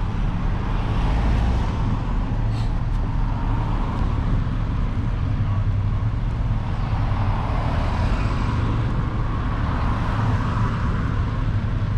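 A car's engine running steadily with road and traffic noise, a continuous low hum.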